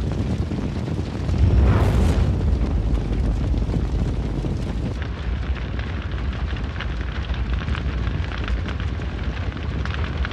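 Tumble dryer full of fuel-soaked laundry burning in a large blaze: a steady deep rumble of flames that swells louder about a second and a half in, with crackling through the second half.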